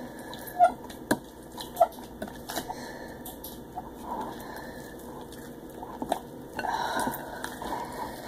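Slime being stirred as foaming hand soap is mixed in: irregular clicks and short squishes, loudest in the first two seconds.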